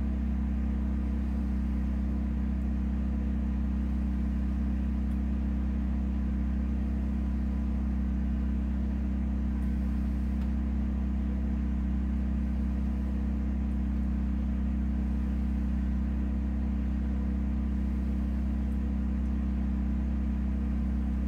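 Steady low hum of a workshop heater running, unchanging throughout, with a couple of faint ticks of handling.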